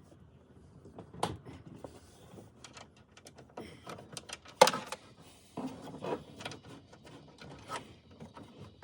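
Scattered clicks and knocks of dashboard trim and instrument cluster parts being handled and fitted, with one sharp click about halfway through.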